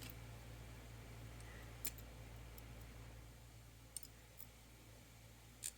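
A few faint, sharp metal clicks, spaced well apart, of tweezers picking pins and springs out of a padlock's pin chambers, over a low steady hum.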